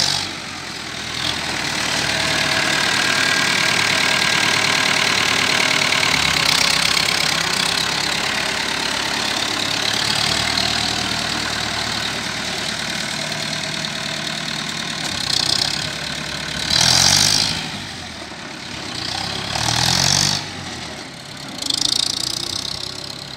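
Massey Ferguson 178 4wd tractor's Perkins four-cylinder diesel running as the tractor is driven slowly, with a steady whine over the engine note through the first half. Two short, louder bursts come in the latter part, and the sound grows fainter near the end as the tractor moves away.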